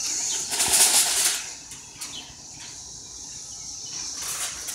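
Aluminium foil crinkling and rustling as the cover is pulled off a foil pan of ribs, then a faint steady high hiss.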